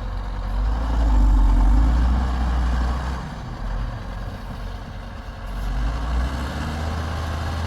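Heavy diesel engines of a backhoe loader and tipper truck at work. The low engine note rises about half a second in, stays loudest for a couple of seconds, then drops back to a steady run.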